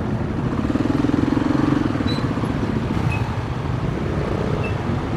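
Motorcycle engines idling and running at low speed in a crawling traffic jam: a steady engine drone with a pulsing note, strongest in the first couple of seconds.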